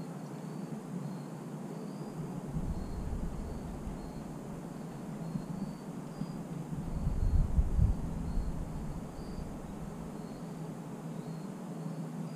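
Faint insect chirping, short high chirps about once a second over a steady outdoor hiss, with two low rumbles, the louder one about seven seconds in.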